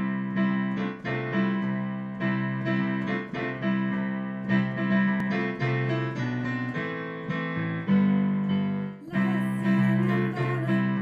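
Piano and electronic keyboard playing an instrumental introduction to a worship song: sustained chords struck in a steady, unhurried rhythm.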